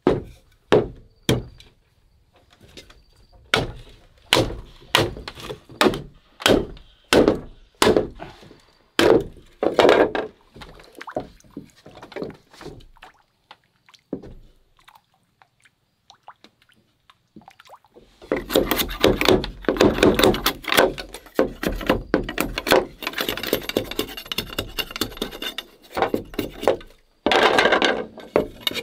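A machete blade driven into a green bamboo tube with sharp woody knocks, one every second or so, some in quick pairs. After a short lull comes a long run of dense crackling and splintering as the bamboo splits lengthwise into strips.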